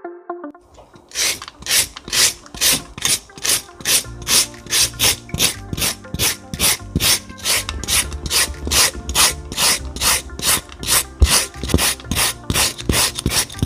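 Handheld julienne slicer shredding a cucumber and then a carrot into thin strips: quick, even rasping strokes, about three a second, starting about a second in.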